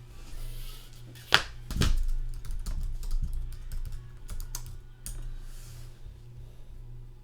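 A sharp click, then a heavier knock, followed by a run of quick light clicks and taps.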